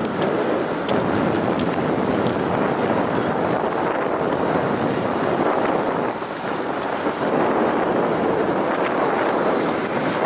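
Loud wind noise buffeting the microphone of a camera on a moving road bicycle: a steady rushing that eases briefly about six seconds in.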